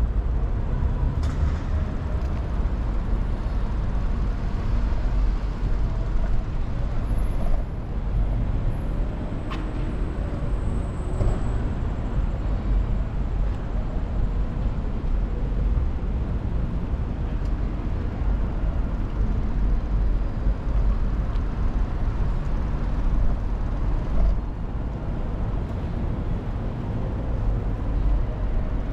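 Wind rumbling on the microphone during a bicycle ride, with street traffic noise and a few faint clicks.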